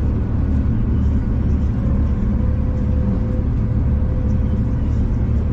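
Passenger train running, heard from inside a carriage: a steady low rumble, with a faint steady whine joining about two seconds in.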